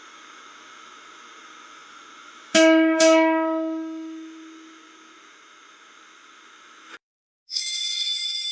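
Steady background hiss with two sharp struck hits about half a second apart, each leaving a pitched ringing tone that fades over a couple of seconds. The background cuts off abruptly, and near the end a bright, high ringing tone starts and slowly fades.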